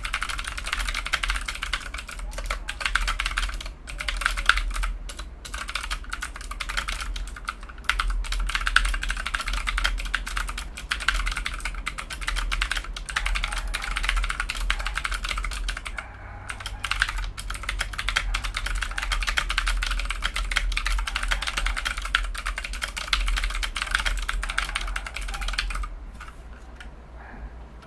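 Fast, continuous typing on a Rakk Kimat XT mechanical keyboard, its clicky keys clattering. There are brief lulls about four and sixteen seconds in, and the typing thins out near the end.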